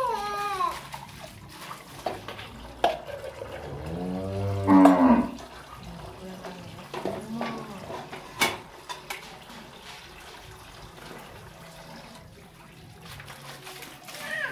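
A cow moos once, a single low call lasting about a second, starting about four seconds in. A few short sharp knocks sound later.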